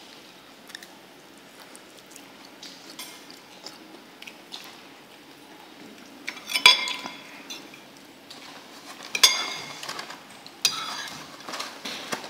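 Metal spoon and fork clinking and scraping against a bowl, with a few sharp ringing clinks in the second half.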